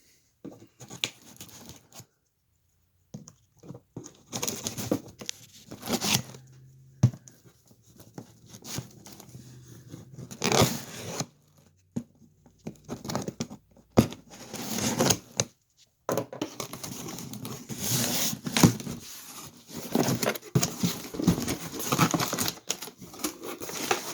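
A cardboard shipping box being opened by hand: tape and cardboard tearing, with crinkling and scraping in irregular bursts broken by short pauses.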